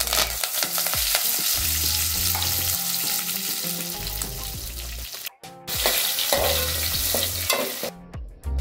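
Fresh curry leaves and dried red chillies sizzling loudly in hot oil, the crackle of a tempering. The sizzle breaks off for a moment about five seconds in, comes back, and dies down near the end.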